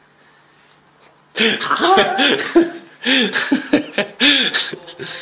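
A person laughing loudly in a run of short bursts, starting about a second and a half in.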